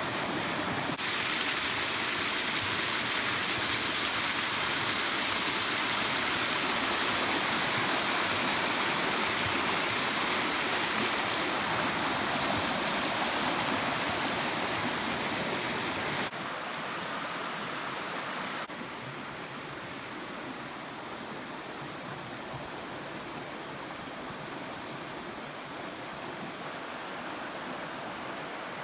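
Steady rushing of fast-flowing river water. The level jumps up abruptly about a second in, then drops in two steps after the midpoint.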